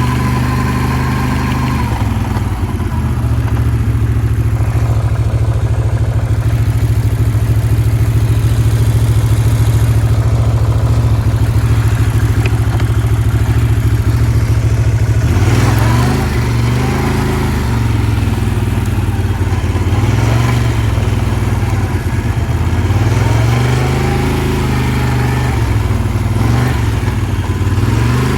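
2009 Can-Am Outlander 800 ATV's V-twin engine running while riding. It holds a steady pitch for the first half, then rises and falls in pitch several times as the throttle is opened and closed.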